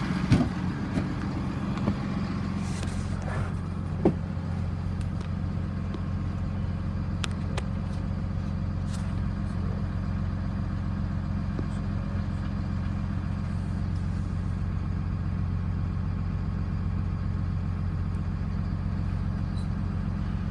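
PACCAR diesel engine of a 2010 Peterbilt truck idling steadily and evenly. A couple of sharp knocks come near the start and about four seconds in.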